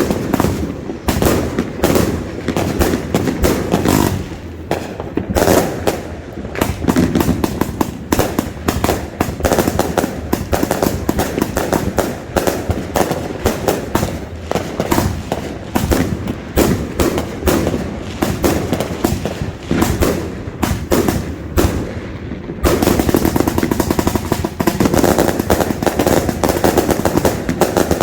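A 288-shot consumer fireworks cake firing one shot after another in a dense, rapid run of sharp reports. From about four-fifths of the way through, the shots come thicker and louder.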